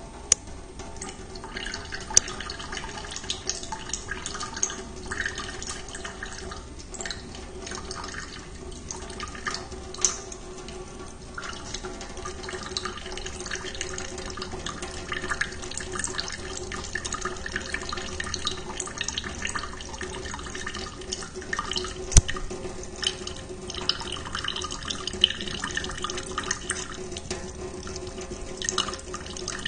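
Thin stream of water running from a kitchen tap into a sink, broken by irregular small splashes and clicks as a cat laps at the falling stream with its tongue. A few sharper clicks stand out here and there.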